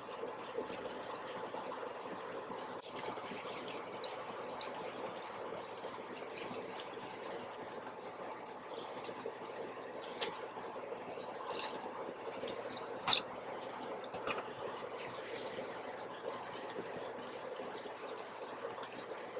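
Steady low sizzling and bubbling from the jjajang sauce and noodles in the hot pan, with scattered light taps and rustles as chopped coriander and spring onions are dropped onto it; the loudest is a sharp click about 13 seconds in.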